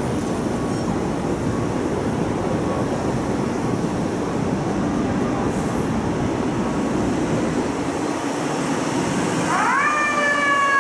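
Steady rumble of idling fire trucks and city traffic. Near the end a fire truck siren winds up quickly to a high wail and then begins slowly falling in pitch.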